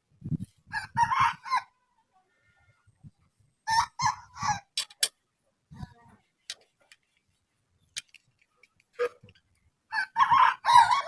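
Chickens clucking and calling in three short bursts, with a few sharp clicks in between.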